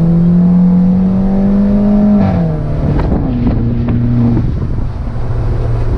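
Peugeot 308 THP's turbocharged 1.6 four-cylinder engine heard from inside the cabin, pulling under acceleration in second gear with its pitch rising steadily for about two seconds. The pitch then falls away sharply and the engine runs on at a steady lower note, with a few short clicks.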